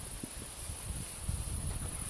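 Soft rustling and irregular low thuds as Siberian huskies wrestle on grass, with no barking or growling, over a steady high hiss.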